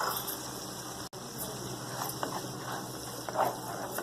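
A spoon scraping against a karahi several times as tomato paste is added to masala frying in oil, over a steady sizzle.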